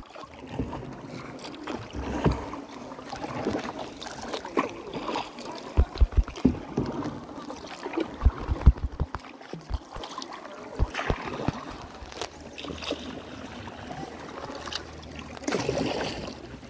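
Kayak paddling on calm water: the paddle dipping and splashing, with scattered drips and small clicks. Short bursts of rapid low thumping come a few times, about 2, 6 and 8 seconds in.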